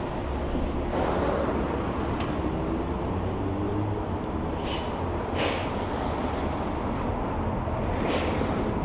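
Road traffic on a busy city street: engines running steadily and cars passing close by, with a few short hissing swells about five and eight seconds in.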